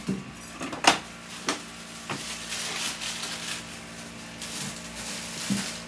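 Paper towels crackling and rustling as a block of raw tuna is wrapped by hand, with a few sharp knocks on a stainless steel counter, the loudest about a second in. A faint steady hum runs underneath.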